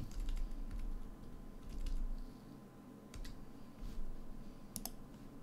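Keys tapped on a computer keyboard in short, scattered runs: a quick run near the start, single taps spread through, and a sharp pair near the end.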